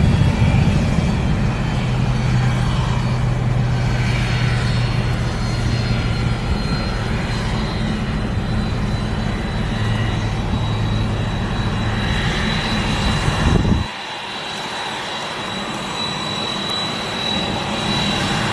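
Twin-engine jet airliner's engines running as it taxis, a steady low rumble with a high whine. About fourteen seconds in, the sound changes abruptly: the low rumble drops away while the whine carries on and grows stronger.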